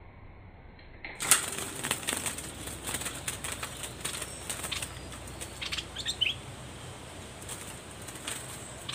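A bulbul caught in a cage trap, beating its wings against the cage. From about a second in there is rapid, irregular fluttering and rattling, with a couple of short chirps a little past the middle.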